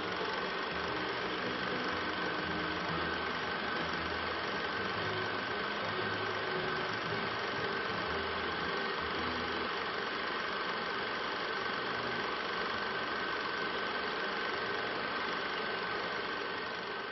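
A film projector running, giving a steady mechanical whir with a constant high hum over a low, uneven rumble.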